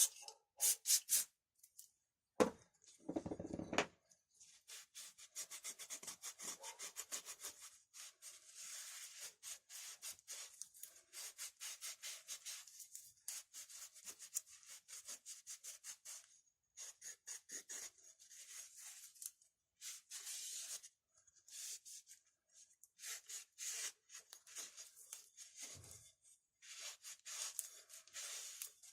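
Quick repeated rubbing strokes of a rag wiping down chainsaw starter parts, in bursts of several seconds with short pauses between. A brief low bump of handling about three seconds in.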